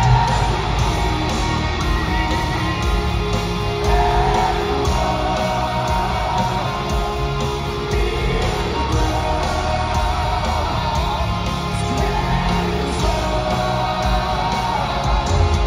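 Heavy metal band playing loud live music with electric guitars, recorded from the audience of a large venue.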